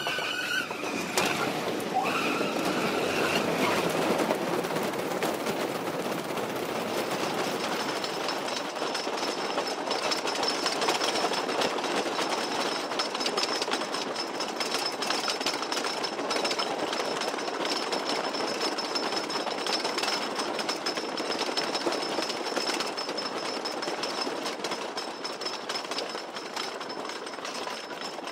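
Roller coaster train running on a steel track: a continuous rattling clatter of rapid clicks, with a thin steady high whine from about seven seconds in.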